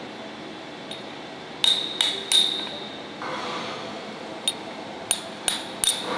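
Sharp metal-on-metal taps with a short bright ring: three in quick succession about a second and a half in, then four more spaced across the second half, over a steady workshop hum.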